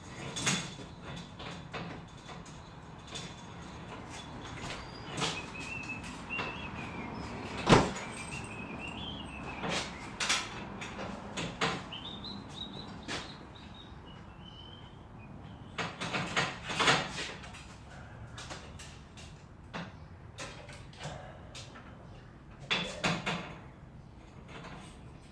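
Sectional garage door and its extension-spring hardware moving and being handled: a string of clunks and rattles, the loudest about eight seconds in, with a wavering squeal between about five and fifteen seconds in.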